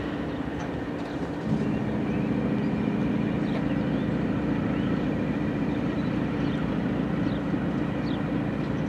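Diesel engines of two GE locomotives, a BC Rail C40-8M and a Canadian Pacific AC44CW, running as they shove in the yard. About a second and a half in, the steady drone steps up louder and holds there, as the engines take more throttle.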